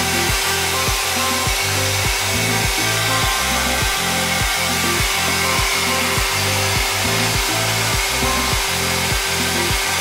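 Xiaomi Soocas H3S hair dryer blowing steadily with a loud airflow hiss, over background music with a steady beat.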